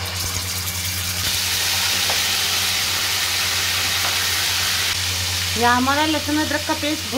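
Ginger-garlic paste frying in hot oil with whole spices, a steady loud sizzle, stirred with a slotted spoon. A voice comes in briefly over it near the end.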